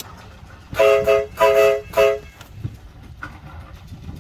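A train's chime horn sounding three quick blasts, the first two a little longer than the last, each a chord of several steady notes.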